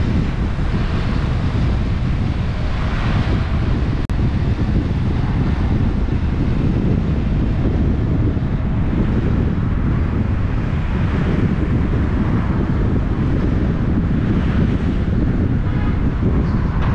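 Wind buffeting the microphone: a loud, steady rumbling noise that cuts out for an instant about four seconds in.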